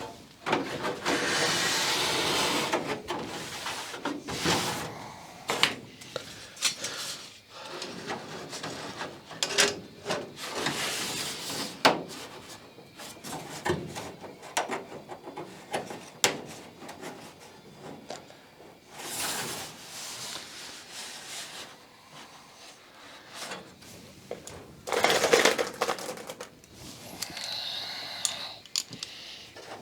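Hand work on a thin aluminium aircraft skin: irregular clicks, knocks and rustling as the sheet is handled and hand tools are picked up and set down, with a few longer scraping, rubbing stretches.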